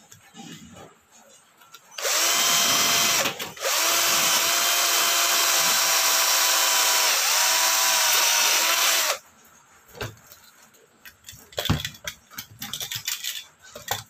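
24V cordless drill boring into a window-screen frame's metal profile: a short run of about a second, a brief pause, then a run of about five seconds with a steady whine that sags slightly as the bit bites, stopping abruptly. A few light knocks of handling follow.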